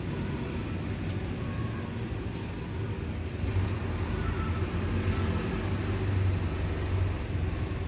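Steady low rumbling background noise, a little louder through the middle.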